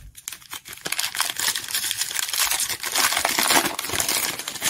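A 2023-24 Donruss basketball card pack's wrapper being torn open and crinkled by hand: a dense crackle that builds about a second in and stops near the end.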